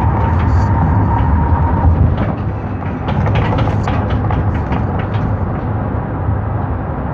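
Cargo van driving, heard from inside the cab: a steady low road and engine rumble, with short rattling clicks in the middle and a thin steady tone that stops about two seconds in.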